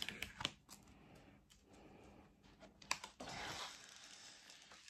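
Faint scattered clicks and light rustling from hands handling a diamond painting canvas and picking a bit of tape off it, with a sharper click just before three seconds in followed by about a second of rustling.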